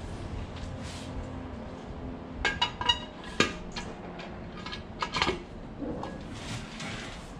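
Aluminium bellhousing clinking and knocking against the transmission's front case and alignment studs as it is slid into place: a cluster of ringing metal clinks about two and a half seconds in, a sharp knock a second later, and a few more clinks around five seconds.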